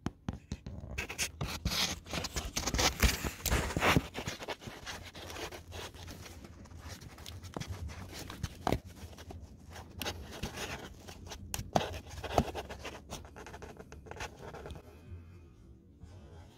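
Handling noise as a phone is worked down into a cramped engine bay: irregular scraping, rubbing and clicks against plastic wiring looms and hoses. It is densest and loudest in the first four seconds, then thins out to scattered clicks.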